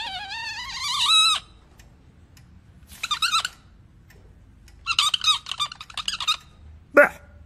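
High-pitched, squeaky wordless vocal noises from a cartoon character. A long wavering hum fills the first second or so, followed by two short runs of warbling chatter and a brief squeak near the end.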